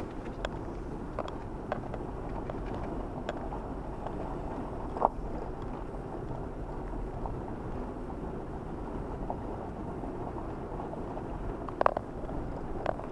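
Car driving slowly over a rough, snow-covered road, heard inside the cabin: a steady low rumble of engine and tyres with scattered light knocks and ticks, a sharper knock about five seconds in and a couple more near the end.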